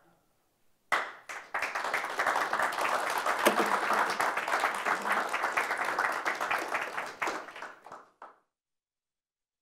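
Audience applauding: the clapping starts suddenly about a second in, holds steady, and dies away just before the end.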